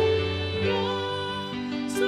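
A woman singing a worship song over instrumental accompaniment, holding her notes with a slight vibrato.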